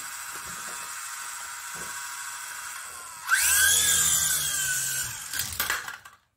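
Small toy RC helicopter's electric motors whining steadily at low speed, then spinning up sharply about three seconds in, loud with a rising whine as it lifts off. A few knocks follow near the end before the sound cuts out.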